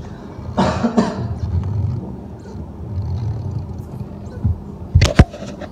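Rubbing and low handling noise as a tyre-plug insertion tool is forced into the tread of a motorcycle tyre, with two sharp knocks close together about five seconds in.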